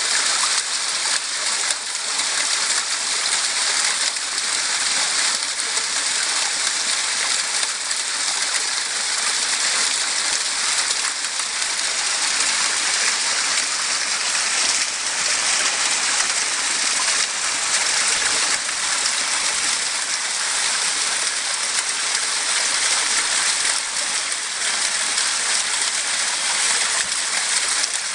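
Small woodland waterfall: a thin stream of water spilling down a rock face into a shallow pool, making a steady, high-pitched splashing hiss.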